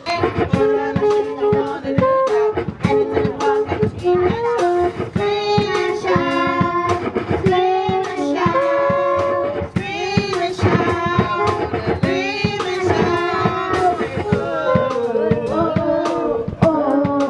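Music: a child singing a melody over a backing track with a steady drum beat.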